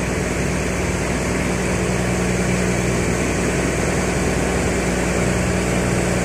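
Fishing boat's inboard engine running steadily at a constant speed, a low even drone over a hiss of water and wind.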